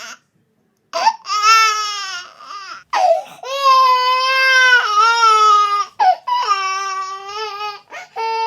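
Infant crying: a run of long, loud wails with short breaths between, starting about a second in after a brief silence, turning into shorter, choppier cries near the end.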